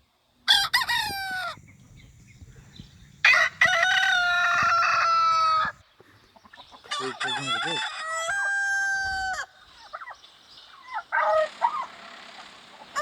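Roosters crowing, three crows in turn: a short one about half a second in, a long held crow a few seconds later, and another around the middle, with fainter calls near the end.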